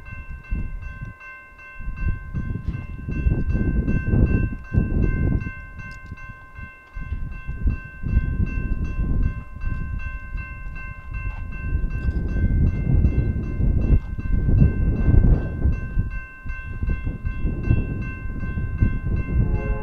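Railroad grade crossing warning bell ringing steadily at about three strikes a second, the crossing activated for an approaching train, over irregular gusts of low rumbling noise.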